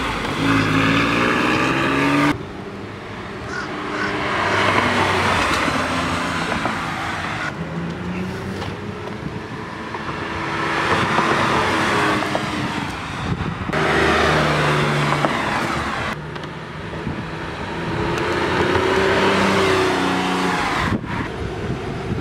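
Porsche 911 Carrera 4S's 3.6-litre flat-six engine and exhaust in several drive-by passes, the pitch rising as the car accelerates past. The sound changes abruptly between passes.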